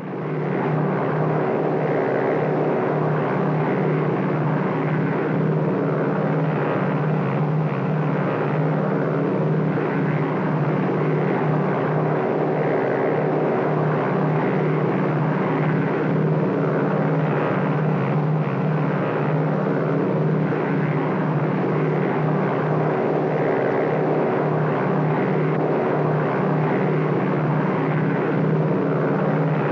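Cabin interior of a PBY Catalina flying boat in flight: the steady drone of its twin radial piston engines and propellers. It fades in from silence at the start and then holds even.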